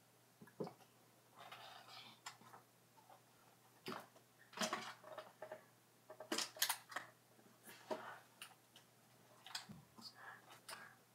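Cardboard boxes and snack packages being moved around on pantry shelves: scattered knocks, clicks and brief rustles.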